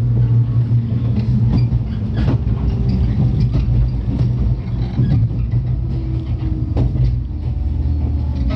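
Interior running sound of a 103 series electric multiple unit under way: a steady low hum with rumble from the motors and running gear, and irregular sharp knocks of the wheels passing over rail joints.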